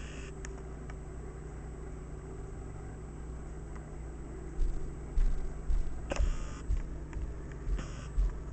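Steady low hum, joined from about four and a half seconds in by a run of dull low thumps, about two a second.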